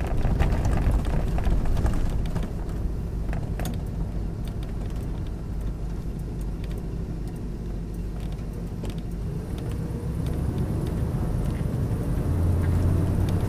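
Inside the cab of a 1988 Ford Econoline-based Tioga motorhome on the move: a steady engine and road rumble with scattered clicks and rattles. A rising engine note comes in about nine seconds in, and the rumble grows louder near the end.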